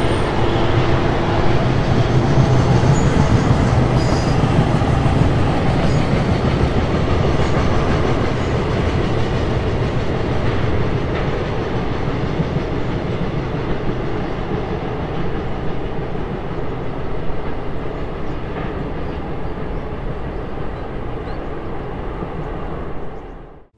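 Freight train of tank wagons rolling across a concrete railway bridge, a steady rumble of wheels on rails that slowly fades as the train moves away.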